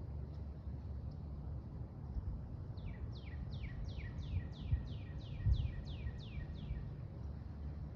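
A songbird sings a run of about a dozen quick falling notes, roughly three a second, over a steady low rumble, with a few soft low thumps partway through.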